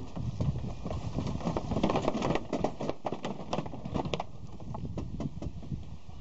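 Sheep hooves clattering in a rapid, irregular run of knocks as ewes run single file through a sheep-handling race in a DrenchMaster vaccinating machine. The knocks are busiest a second or two in and thin out after about four seconds.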